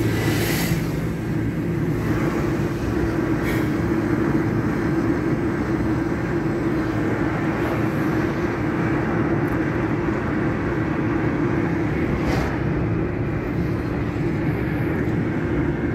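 Steady road and engine noise heard from inside a moving car, with a few faint brief clicks.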